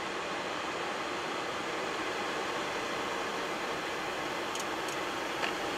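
Steady hiss and hum of a Boeing 737-800 flight deck, its CFM56 engines running at low power with the air conditioning blowing. There are a couple of faint clicks near the end.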